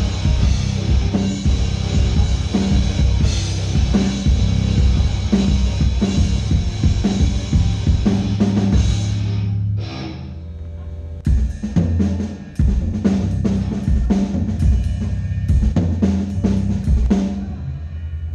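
Rock band playing at a sound check, the drum kit to the fore with bass and cymbals. About ten seconds in the full band drops out, leaving separate drum hits over a low held bass tone that fades near the end.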